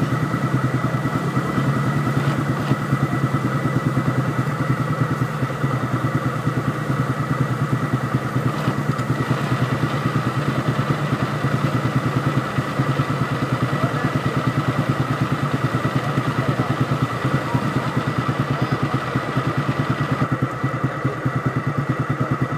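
ATV engine running steadily at an even speed, its pitch barely changing.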